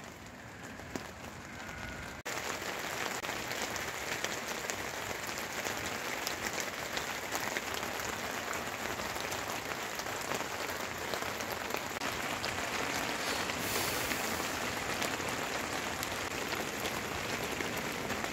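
Heavy rain falling steadily, a dense even hiss of drops that comes in louder after a cut about two seconds in.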